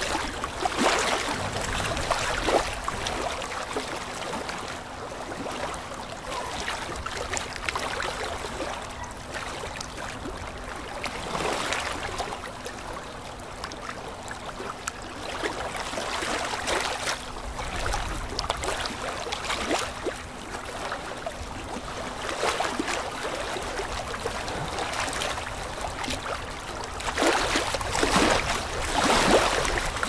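Aquarium water bubbling and splashing from air-driven sponge filters and an air stone: a steady wash that swells every few seconds and is loudest near the end, with a steady low hum underneath.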